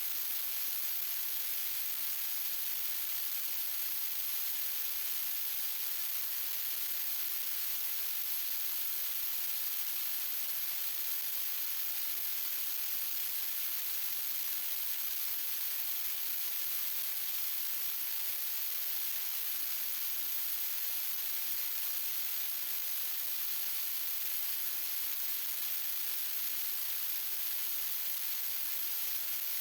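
Steady hiss like static or white noise, strongest in the high end, holding level with no change.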